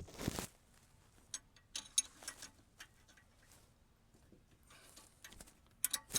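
Scattered small metal clicks and ticks as an R134a retrofit adapter fitting is worked tight onto a car's A/C service port with a wrench.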